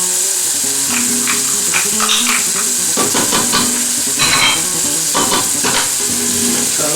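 Onions, sweet peppers, kidney beans and freshly added garlic sizzling as they fry in a pan, with a steady sizzle. The pan is stirred, giving a run of short scraping strokes between about one and six seconds in.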